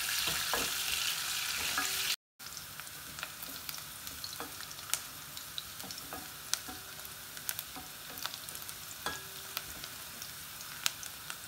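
Sliced onions sizzling in hot oil in a granite-coated pot, with a wooden spatula scraping and clicking against the pan as they are stirred; the onions are being sautéed to half-cooked. The sizzle is louder for the first two seconds, then breaks off briefly and goes on quieter.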